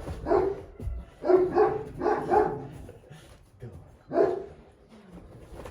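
Central Asian Shepherd dog barking: a run of short barks in the first two and a half seconds, a pause, then one more bark about four seconds in.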